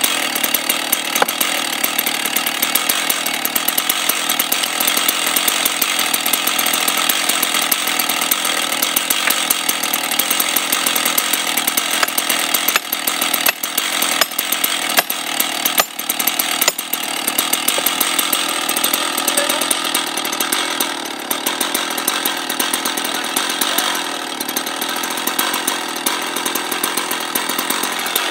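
Stihl 880 chainsaw's large two-stroke engine idling steadily, with a few sharp knocks about halfway through.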